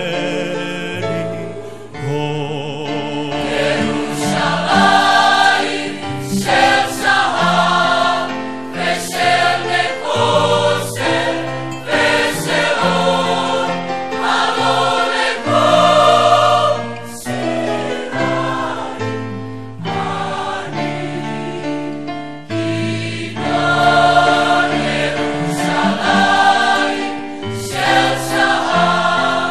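Large mixed choir of male and female voices singing together in harmony.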